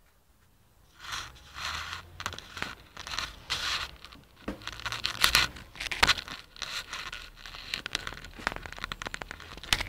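Handling noise: irregular crackling, scraping and rustling against the camera's microphone, starting about a second in, with many sharp clicks. No jet whistle is heard.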